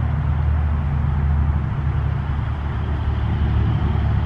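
Steady low motor rumble with a continuous hum and no breaks or changes.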